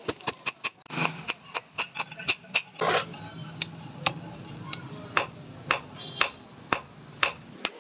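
Hand hammer striking a red-hot steel knife blade, forged from an old file, on a steel anvil. A quick run of sharp blows comes about four a second, then a heavier strike about three seconds in, then slower blows about two a second.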